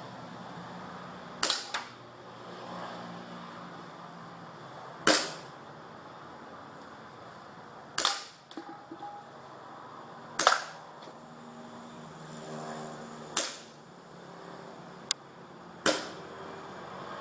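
Airsoft pistol firing single shots, about seven sharp cracks spaced two to three seconds apart.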